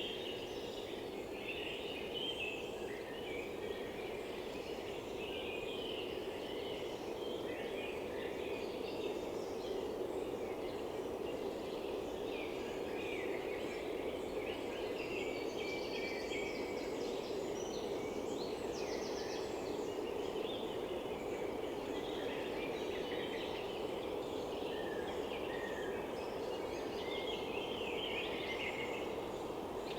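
A mixed chorus of forest songbirds singing and calling, many short phrases overlapping throughout, over a steady low background noise.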